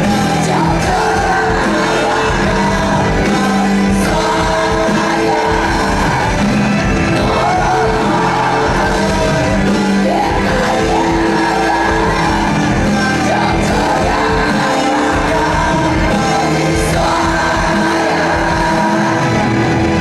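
Live amplified rock band playing a song with a lead singer.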